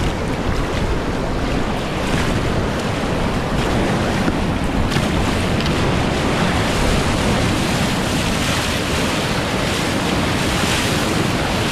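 Steady rush of a high, rain-swollen river's whitewater heard from a kayak at water level, with paddle strokes and the bow splashing through waves. Wind buffets the microphone.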